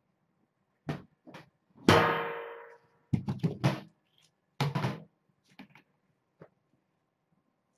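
Knocks and clatters of hard objects being handled and set down, with one loud ringing metallic clang about two seconds in.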